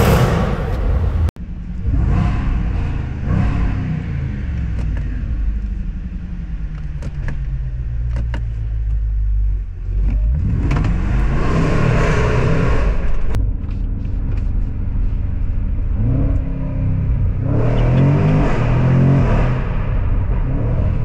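Jaguar F-Pace SVR's supercharged 5.0-litre V8 running and revving while driven, its pitch rising and falling through the gears, with two hard accelerations, one about ten seconds in and one about seventeen seconds in, and a few short sharp cracks in between. The sound cuts out for an instant about a second in.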